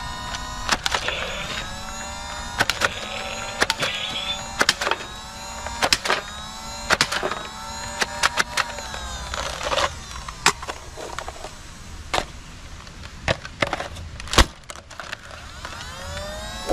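Motorized Nerf Elite 2.0 blaster firing foam darts. Its flywheels spin up again and again with a whine that rises and then levels off, mixed with sharp clicks of darts hitting the plastic targets.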